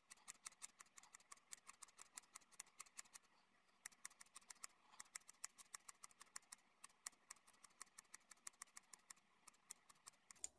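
Hair-cutting scissors snipping faintly and rapidly up into the ends of a section of hair held between the fingers (point cutting): a quick run of small clicks, several a second, with a brief pause about three seconds in.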